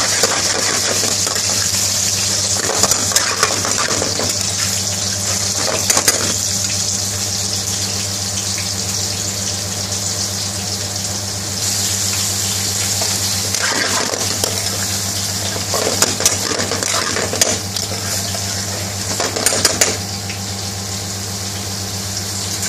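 Metal spoon stirring and scraping curry in a metal frying pan, clinking against the pan in several short bursts, over a steady sizzling hiss and a low hum.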